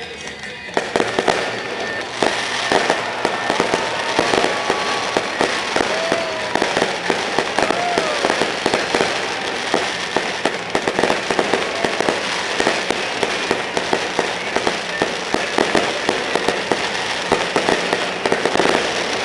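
Fireworks display: a dense, rapid barrage of sharp pops and crackles from many bursting shells, beginning about a second in and keeping up without a break.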